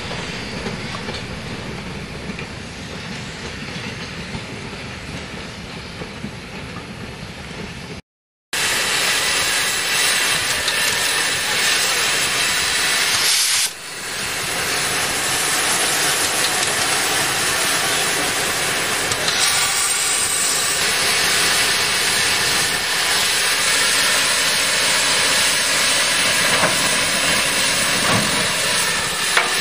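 Goods wagons rolling past with a low rumble and clatter of wheels. After a cut, steam hissing steadily and loudly from the K class 2-8-0 steam locomotive K160.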